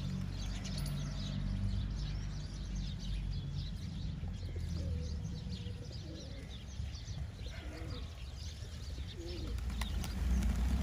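Rock pigeons cooing a few times in the middle, over a scatter of short, high bird chirps. Underneath runs a steady low hum that grows louder near the end.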